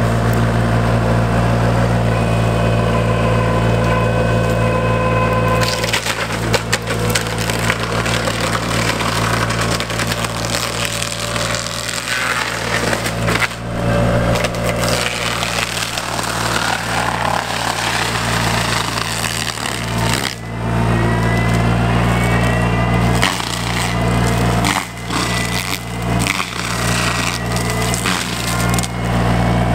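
Bobcat E35 mini excavator's diesel engine running steadily under load, with a steady whine from the disc mulcher's spinning head. From about six seconds in, the carbide-toothed disc chews into brush and tree wood with a continuous crackling and splintering, easing off now and then.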